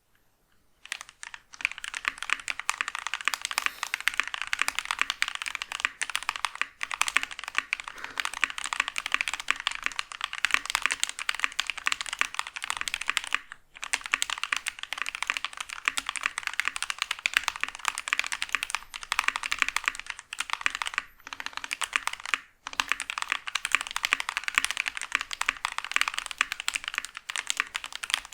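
Fast, continuous typing on a mechanical keyboard fitted with lubed KTT Rose linear switches with progressive springs: a rapid, clacky stream of keystrokes, broken by brief pauses about 13 and 22 seconds in.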